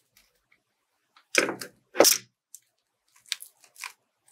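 Two sharp plastic clacks, one a little over a second in and another at about two seconds, from a hot glue gun being handled and set down on the table, followed by a few faint clicks and rustles.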